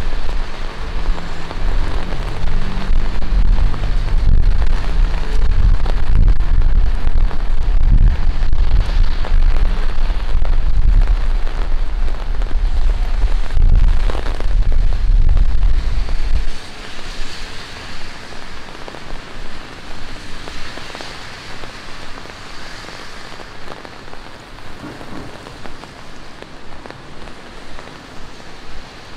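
Steady rain falling on a city street, with a loud deep rumble underneath that cuts off suddenly a little past the middle, leaving only the hiss of the rain.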